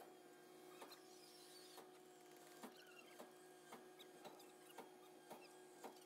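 Near silence: a faint steady hum with light, irregular ticks.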